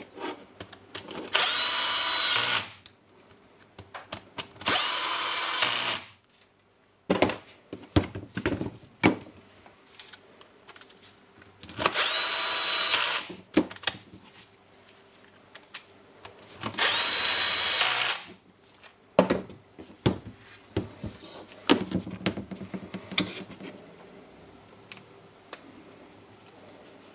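Cordless drill-driver run in four short bursts of about a second and a half each, a steady motor whine, driving in the hammer-housing screws of an impact wrench. Small clicks and knocks of parts being handled fall between the bursts.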